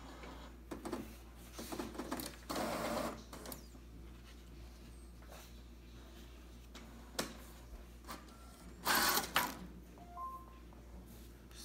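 Brother MFC-J875DW inkjet printer running a print head cleaning cycle to clear its clogged black nozzles: the mechanism whirs in short bursts about a second in, near three seconds and near nine seconds, with quieter stretches between.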